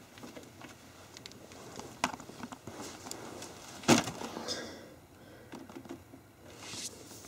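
A cat jumping up onto a carpeted cat-tree platform, landing with a single sharp thump about four seconds in, among small scattered clicks and rustles.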